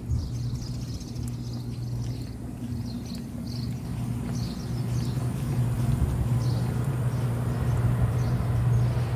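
A motor vehicle's engine running with a steady low hum that slowly grows louder, with short high chirps scattered over it.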